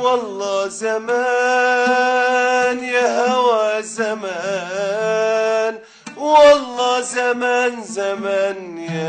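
A man singing long, wavering held notes while accompanying himself on an oud, with a short pause about six seconds in before the singing picks up again.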